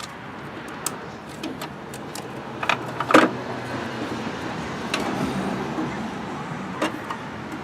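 Scattered plastic clicks and rattles as the tail light's wiring plug is worked loose from the lamp, with one sharp click about three seconds in.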